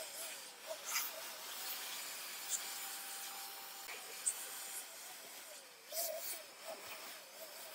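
Electric handheld air blower running, blowing dust out of an old voltage stabilizer's open casing: a steady airy hiss with a faint wavering whine and scattered small rustles and ticks.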